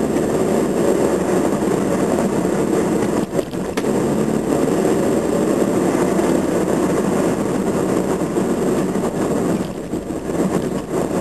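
Steady engine and tyre noise inside a moving car's cabin, with a brief dip about three seconds in and a quieter spell near the end.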